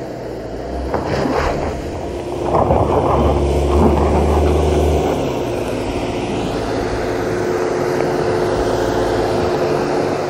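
The 2022 Subaru Outback Wilderness's turbocharged flat-four engine working under load as the car climbs a steep rocky trail, growing louder as it comes closer. A few stones crack and crunch under the tyres about a second in.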